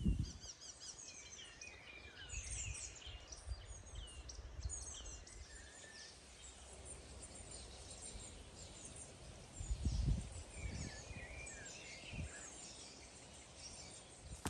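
Several small songbirds chirping and trilling over a faint low background, with a short low rumble about ten seconds in.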